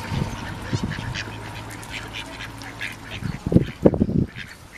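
Ducks quacking and calling at a pond while being fed, in quick short calls, with a louder cluster of low calls or bursts near the end. A steady low hum runs underneath and stops about three seconds in.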